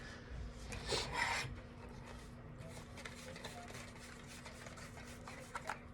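Ribbon rustling and rubbing as a multi-ribbon bow is handled, with a louder rustle about a second in and faint scratchy handling noises after.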